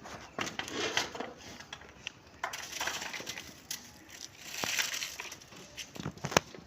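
Goat biting and chewing watermelon, crunching in irregular bursts with a few sharp clicks near the end.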